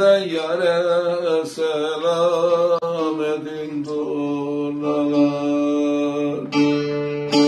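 A man singing a Turkish folk song in long, wavering held notes to his own bağlama (long-necked saz) accompaniment; about six and a half seconds in, a strummed chord on the bağlama.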